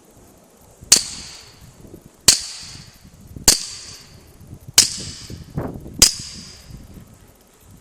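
Five suppressed 9mm pistol shots from an HK USP with a SilencerCo Osprey 9mm suppressor, fired dry with 147-grain subsonic rounds, heard from downrange. The shots are evenly paced about a second and a half apart, and each sharp report trails off briefly.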